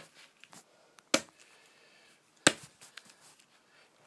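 Tech Deck fingerboard clacking: two sharp clacks a little over a second apart, with a few lighter ticks around them.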